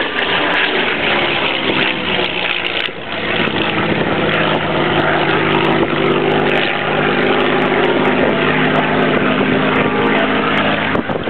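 Supermarine Spitfire's V12 piston engine droning through an aerobatic display, its pitch rising and falling as the aircraft manoeuvres.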